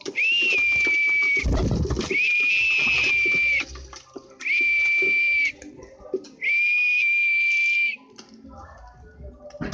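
Four long whistled notes, each held on the same steady high pitch, with short gaps between them. A low thump comes between the first two.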